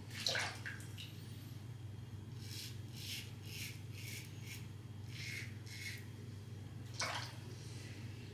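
Mühle R89 safety razor scraping through shaving lather and stubble in a run of about seven short strokes. A louder swish near the start and another near the end, over a low steady hum.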